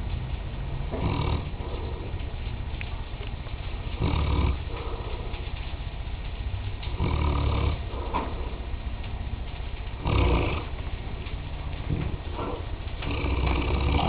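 Mastiff snoring in its sleep: five rumbling snores, about one every three seconds.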